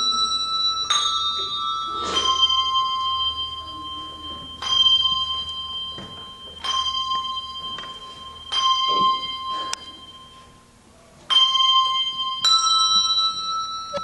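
Handbells rung by a children's bell choir playing a slow melody: single notes and small chords struck every one to three seconds, each ringing on and fading. The ringing dies away almost completely about ten seconds in before the next chord is struck.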